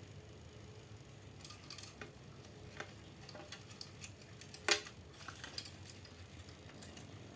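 Scattered light clicks and taps of small hard objects being handled, with one sharper knock about two-thirds of the way through, over a low steady hum.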